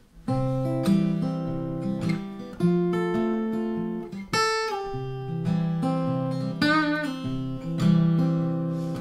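Small mahogany acoustic guitar fingerpicked in a country style, with bass notes held under a moving melody line. About four and a half seconds in a bright ringing note stands out, and about seven seconds in one note wavers in pitch.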